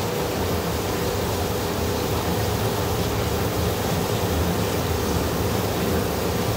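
Automatic khanom jeen rice-noodle machine running: a steady hum with a constant mid-pitched tone under a continuous rushing noise.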